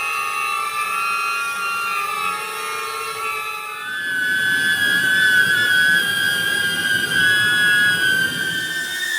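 DJI Neo mini drone flying, its propellers giving a steady high whine that steps up in pitch about four seconds in, with more rumble from then on.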